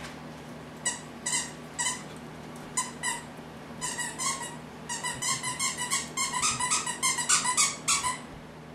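A puppy's rubber squeaky toy squeaked over and over as the standard poodle puppy bites it. It starts with a few separate squeaks, then comes in a quick run of squeaks from about five seconds in until just before the end.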